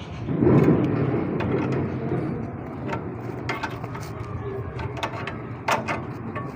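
Motorcycle stand making its noise: a rough clatter about half a second in, then scattered clicks over a steady low hum.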